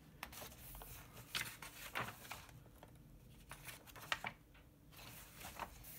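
Paper pages of a printed instruction booklet being turned and smoothed flat by hand: a few short, soft rustles and flicks.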